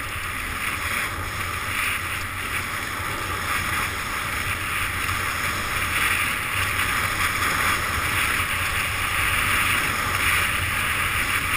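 Wind rushing over a GoPro's microphone and skis hissing and scraping over packed snow during a downhill run, swelling and easing without a break.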